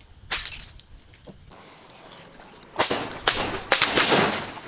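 Brittle objects being crushed: one sharp crack, then about two and a half seconds later a quick run of four or five crunching cracks.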